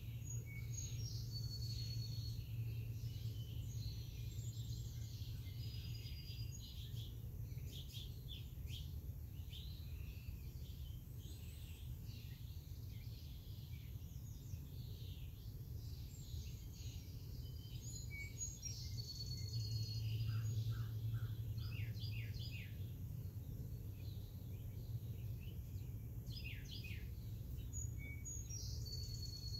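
Several songbirds chirping and whistling on and off, over a steady low rumble that swells for a couple of seconds about twenty seconds in.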